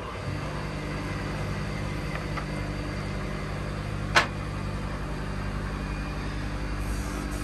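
A steady low motor hum, with one sharp click about four seconds in.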